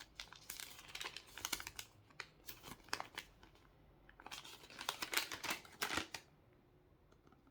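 A folded paper instruction leaflet being handled and unfolded: irregular crisp rustling and crackling that dies away about six seconds in.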